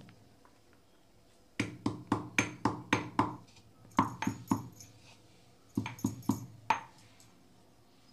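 Heavy stone pestle pounding dry ginger, roasted coriander seeds and black pepper in a stone mortar, crushing them for spice powder. The strikes come in three runs of quick knocks, about four a second, with short pauses between; the first run is the longest.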